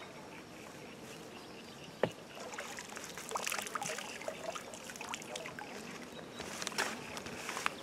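Water sloshing and splashing in small irregular bursts, mixed with knocks and clicks, after a single sharp click about two seconds in.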